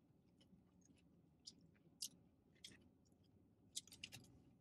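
Faint mouth sounds of someone eating fried chicken: scattered wet clicks and smacks of chewing and finger-licking, a few each second, with a quick cluster about four seconds in, over a faint low hum.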